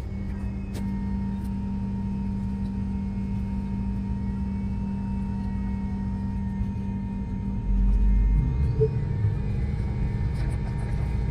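Cabin noise inside an MD-88 airliner on the ground: the steady drone and hum of its rear-mounted Pratt & Whitney JT8D engines as it taxis. A louder deep rumble swells for about a second around eight seconds in.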